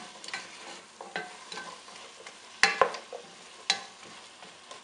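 Wooden spoon stirring diced potatoes through an onion, garlic and chili base frying in oil in a metal pot. A steady sizzle runs under scrapes and sharp knocks of the spoon against the pot, the loudest a quick pair about two and a half seconds in and another a second later.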